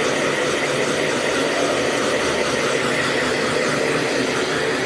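Hair dryer running steadily.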